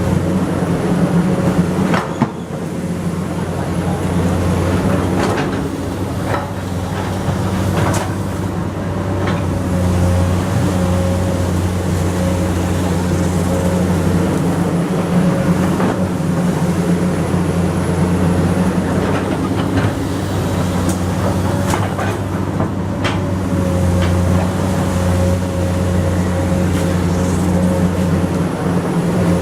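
Komatsu PC200 hydraulic excavator running steadily at work: a steady diesel engine drone with a higher whine that comes and goes, and several sharp knocks scattered through.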